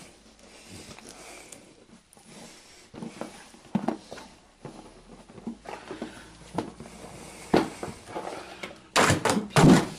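Cardboard box being worked open by hand: scattered scrapes, taps and rustles, with a louder burst of scraping about nine seconds in.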